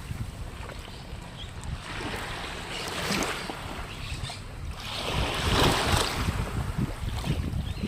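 Wind buffeting the microphone as a low rumble, with rushing swells that grow louder about two seconds and five seconds in.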